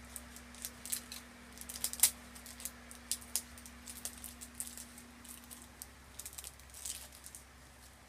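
Irregular crinkles and sharp clicks of a surprise egg and its wrapping being handled and worked open by hand, the loudest click about two seconds in, over a faint steady hum.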